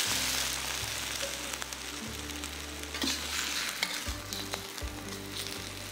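Sliced king oyster mushrooms sizzling steadily in hot oil in a pan, with a splash of water just added, a little louder in the first second or two.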